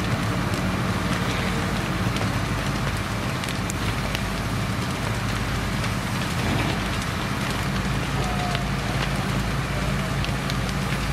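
A burning timber grain barn crackling, with scattered sharp pops and hiss. Under it is the steady hum of an engine running.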